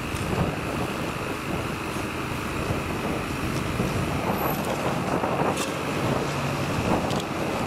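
Vehicle engines running steadily, a continuous rumble with a faint steady whine above it and a few light clicks.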